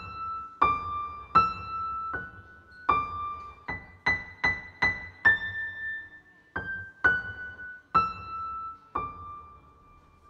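Background music: a slow, gentle melody of single high notes on a piano-like keyboard, one note at a time. The last note is held and rings out near the end.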